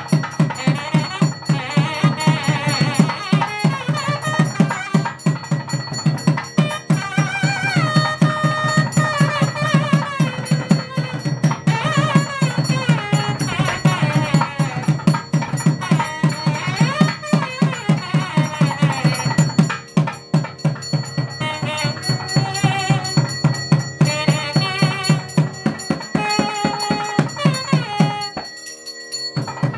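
Traditional South Indian temple music: rapid, steady drumming under a wavering melody line. The drumming breaks off briefly near the end.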